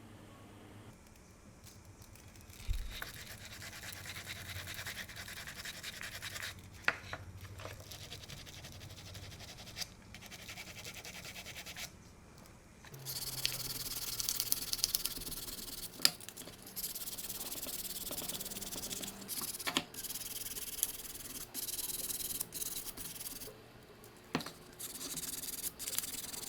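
Hand scraping and rubbing on a small part in stretches of strokes, louder in the second half, with a few sharp clicks or knocks between them.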